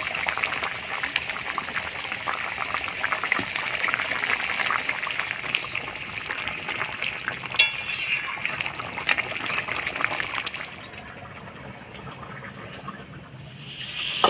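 Mustard fish curry bubbling hard in a kadai: a dense crackling, sizzling hiss, with a metal spatula clinking against the pan a couple of times about eight seconds in. The bubbling falls away to a quieter hiss for the last few seconds.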